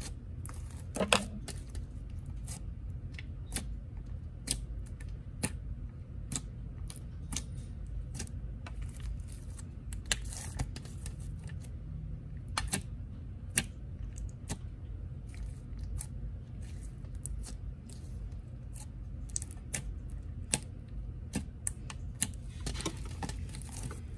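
Clear slime with small beads being squished, folded and stretched by hand, giving many irregular sharp pops and clicks as trapped air bursts. A steady low hum runs underneath.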